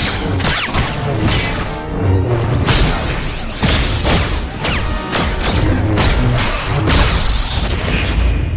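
A rapid run of cinematic fight sound effects, dense hits, crashes, booms and whooshes, over a music track with a heavy bass line.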